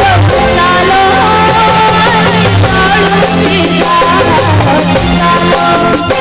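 A boy singing an Odia devotional song (bhajan) into a microphone over live accompaniment, with drums keeping a steady beat; the even percussion ticks come in about a second and a half in.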